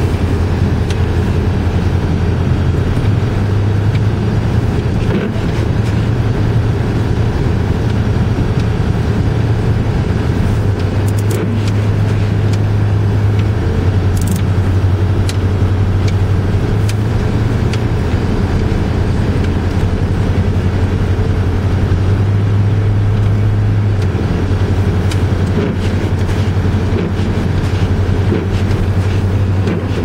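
Car engine and tyre noise heard from inside the cabin while driving on a snow-covered road: a steady low drone that steps up and down a little in pitch as engine speed changes, with a few faint clicks.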